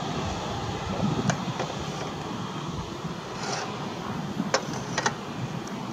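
Boeing 737-300 freighter's CFM56 turbofan engines running at taxi idle, a steady rushing hum, with a few short clicks about a second in and twice near the end.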